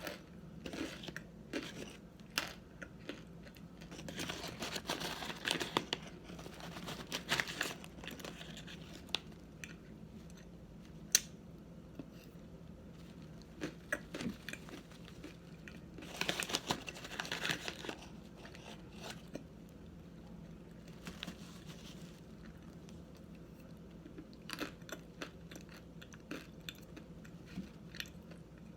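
Dry arrowroot starch being eaten: crisp crunching and crackling from chewing the powder, with clicks in two longer bursts, one about four seconds in and one in the middle.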